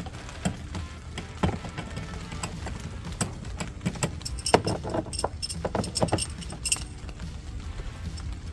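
Irregular light clicks, knocks and metallic clinks of small bolts and a hand tool being handled against a plastic door trim panel as the door pull handle's bolts are started by hand.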